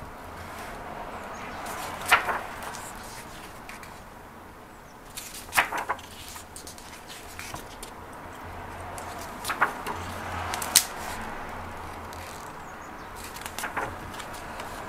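Pages of a large hardcover photobook turned by hand, each turn a short papery swish and flap, several times a few seconds apart.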